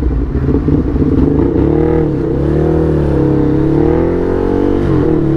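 Ducati Hypermotard's L-twin engine running under a rider, its pitch rising and falling with the throttle and dipping briefly twice, about two seconds in and near the end.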